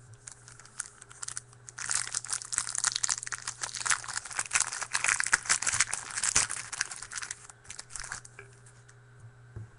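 A foil trading-card pack wrapper crinkling and crackling as it is torn open, densest for about six seconds in the middle, with scattered lighter crackles before and after.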